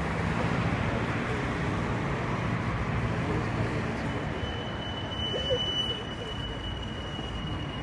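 Steady city street traffic noise with a low engine hum, and a thin steady high-pitched whine that comes in about halfway through.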